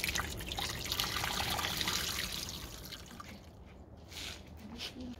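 Water trickling and splashing, fading away about three seconds in, followed by a few light clicks.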